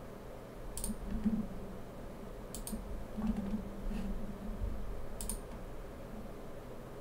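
A few sharp clicks from a computer mouse and keyboard: one about a second in, a quick pair of clicks near three seconds, and another a little after five seconds.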